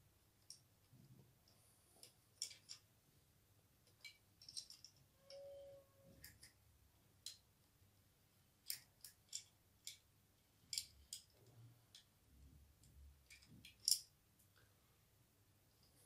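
Scattered sharp plastic clicks and taps as a cable connector is handled and pushed into the extruder stepper motor's socket on an Ender 3 Pro 3D printer. The loudest click comes near the end.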